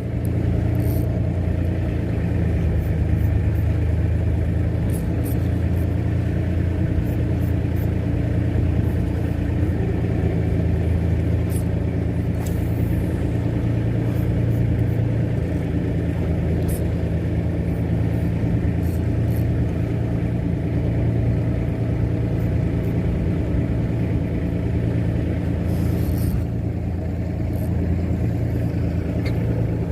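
Fishing boat's engine running at a steady speed while the boat travels.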